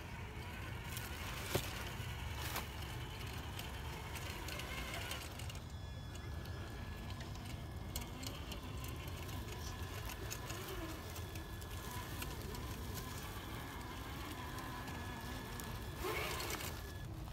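Traxxas TRX-4 Defender RC crawler's electric motor and gearbox whining as it crawls over dry leaves and rocks towing a trailer, over a steady low rumble, with a few sharp clicks and a brief rustle about sixteen seconds in.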